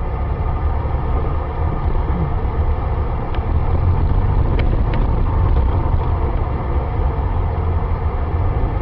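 Steady low rumble of a car's engine and tyres heard inside the cabin while driving in slow city traffic, with a few faint clicks between about three and five seconds in.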